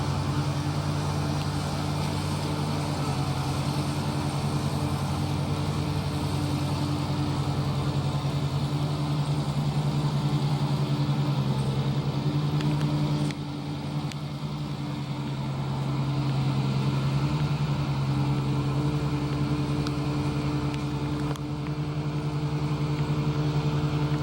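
Iseki 325 rice harvester's engine running steadily at working speed, a constant droning hum, with a brief drop in loudness about 13 seconds in.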